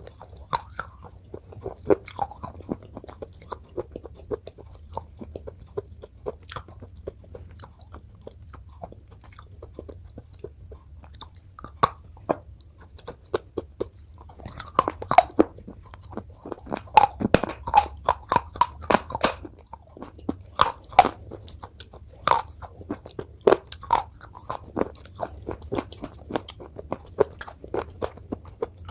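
Close-up mouth sounds of biting and crunching a hard, brittle piece, with chewing between bites. The crunches are sparse at first and come thick and loud from about halfway through.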